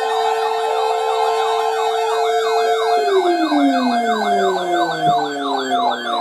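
Several electronic sirens sounding at once: a rapid yelp repeating about three to four times a second, a fast high warble, and a steady wail that begins winding down about three seconds in.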